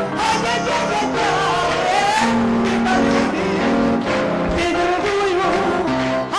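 A woman singing a Gypsy song into a microphone over instrumental accompaniment, holding long notes with a wavering pitch.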